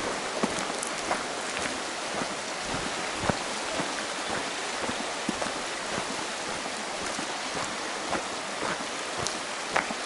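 Steady hiss of water, with scattered sharp taps through it.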